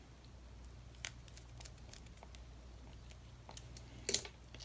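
Small clicks and handling noises from a baitcasting reel being worked on by hand, with one short, louder scrape about four seconds in.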